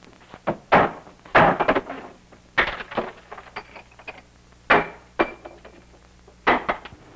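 A radio set being smashed up: about eight heavy blows spread over six seconds, with breaking and rattling after several of them.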